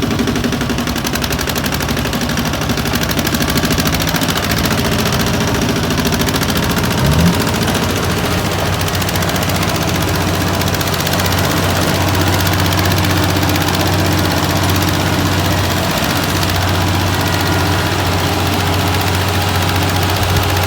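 Tractor diesel engine running with a rapid, even beat. The revs rise briefly about seven seconds in, and the engine then settles into a steadier, deeper drone.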